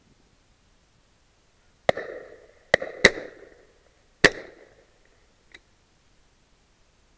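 Four shotgun shots in about two and a half seconds, each followed by a short echo dying away. A faint click about a second after the last shot.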